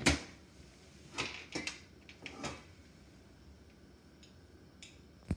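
Cookware being handled on a kitchen stovetop: one loud sharp knock at the start, a few lighter clattering knocks over the next couple of seconds, and a sharp click near the end.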